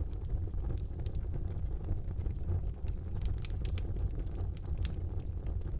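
Steady low rumble with faint hiss and scattered small clicks and crackles.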